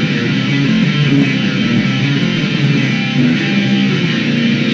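Guitar in standard tuning played without pause, a busy run of picked notes and chords.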